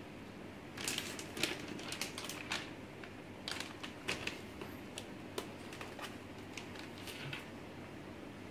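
Scattered clicks, knocks and crinkles of a laptop and a plastic snack packet being picked up and handled on a desk, starting about a second in and dying away near the end, over a faint steady room hum.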